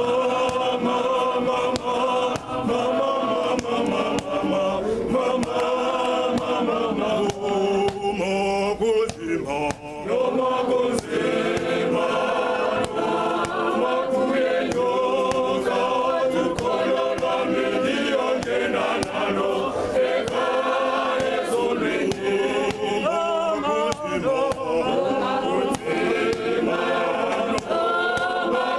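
Men's choir singing together unaccompanied, with a brief break in the voices about nine seconds in.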